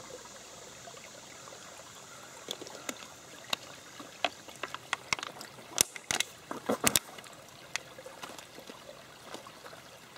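Shallow woodland stream trickling steadily over stones, with a run of sharp clicks and rustles from something being handled close by in the middle, loudest just past the middle.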